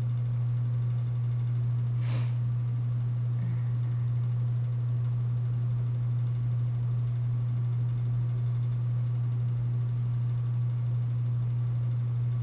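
Steady low-pitched hum at an even level, with one brief soft noise about two seconds in.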